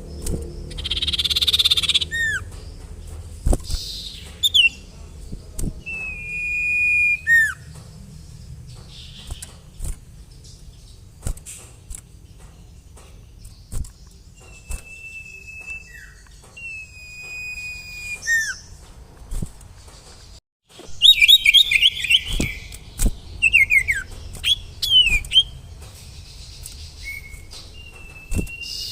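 Sirtu (cipoh, the common iora) calling: several long, level whistles, each ending in a short falling note, then a loud run of quick chattering chirps about 21 seconds in. A faint low hum lies underneath.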